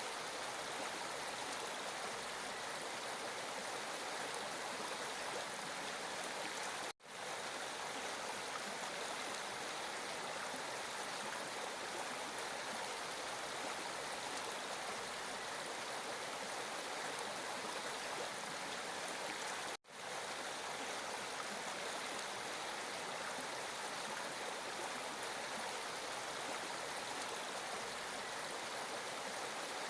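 Water flowing steadily, an even, unbroken wash of sound. Twice it cuts out for a split second, about seven seconds in and again about twenty seconds in.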